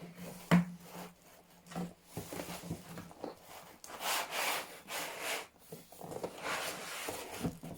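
Cardboard box and packaging being handled as a laptop is unpacked: a sharp knock about half a second in, then irregular rubbing and sliding swishes.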